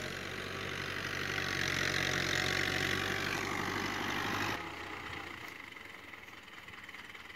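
Ghazi tractor's diesel engine running steadily under load as its front blade pushes soil. About four and a half seconds in, the sound drops abruptly to a quieter, fainter engine.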